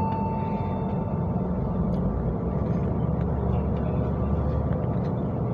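City bus running along the road, heard from inside the cabin: a steady low engine and road rumble that grows stronger in the bass about three seconds in.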